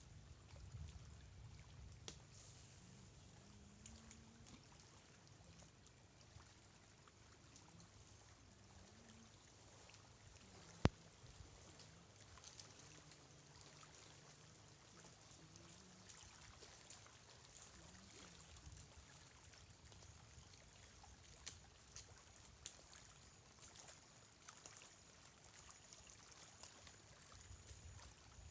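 Near silence: a faint wash of seawater at the shore, with one sharp click about eleven seconds in.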